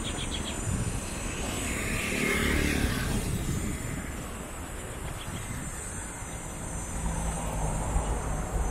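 Road traffic while crossing a city avenue: a vehicle passes close by about two to three seconds in, and a low engine hum comes in near the end.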